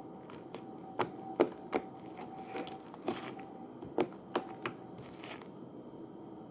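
Slime being squished and worked by hand, giving irregular sharp clicks and pops, most of them in the first five seconds.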